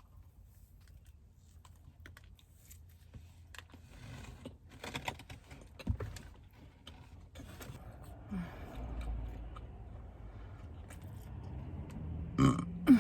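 Small clicks and mouth noises while eating a mochi donut, then a loud burp shortly before the end.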